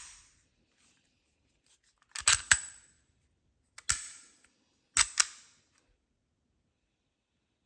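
Sharp clicks from pistol parts being handled, some single and some in quick pairs, spread over about five seconds.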